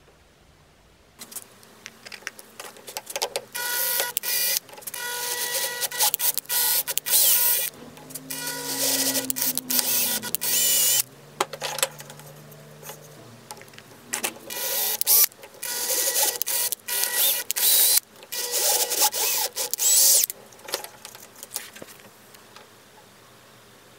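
Metal-on-metal scraping as a hand tool works the edges of a small machined steel collar held in a bench vise: irregular runs of rasping strokes with a faint ringing tone beneath them, stopping near the end.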